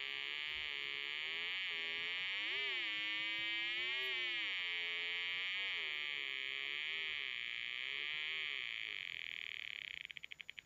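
Snap Circuits trombone circuit buzzing through its small speaker: a harsh electronic tone whose pitch slides up and down again and again as the sliding part is moved back and forth. Near the end it breaks into rapid stutters and cuts off.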